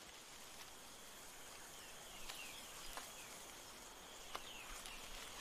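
Faint rainforest ambience: a steady high insect hum, with a few short high chirps and clicks scattered through it.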